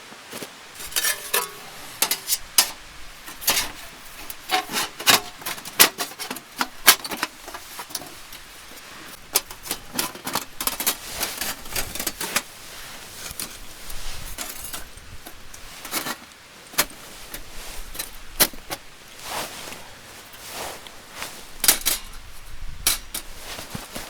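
Irregular sharp clicks, clinks and knocks, some in quick clusters, from objects being handled.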